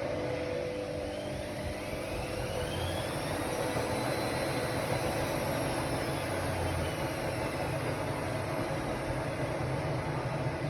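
Ariston Margherita 2000 AL 108 D washer-dryer running with a steady whirring hum, its motor whine climbing in pitch over the first few seconds and falling again in the second half as the drum speeds up and slows down.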